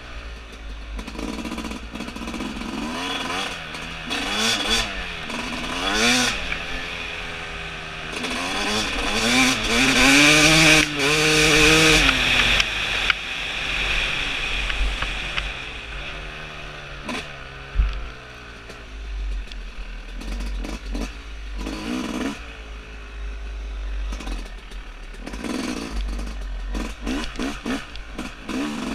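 2017 Yamaha YZ250 two-stroke single-cylinder dirt bike engine being ridden hard, revving up and dropping back again and again, loudest about ten to twelve seconds in. Knocks and clatter from the bike bouncing over the dirt trail, with one sharp knock about two-thirds of the way through.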